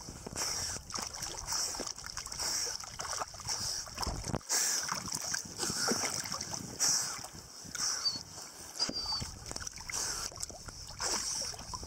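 Sea water splashing close to the microphone in uneven bursts, stirred up by a swimming golden retriever and a person's hand in the water.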